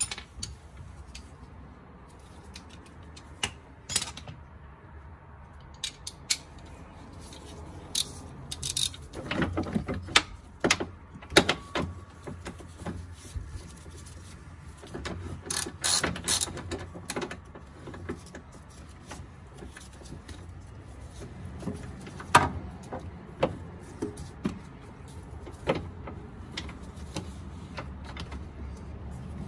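Hand socket ratchet on an 18 mm bolt clicking in short runs as the bolt is tightened by hand, with a sharp metallic knock about two-thirds of the way through.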